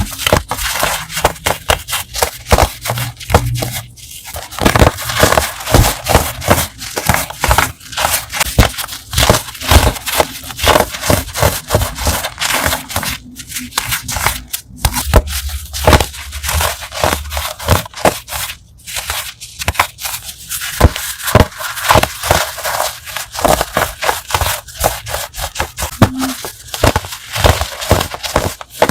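Crunchy chalk being crushed: a dense run of sharp crackling crunches, broken by a few short pauses.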